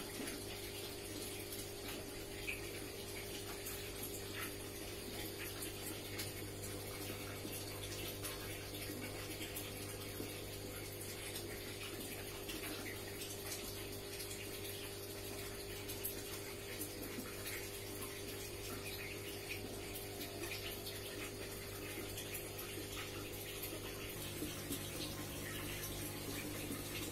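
Aquarium aeration: a steady bubbling, running-water sound with an air pump's steady hum beneath it, oxygenating the water for a stressed fish. One higher hum tone drops out near the end.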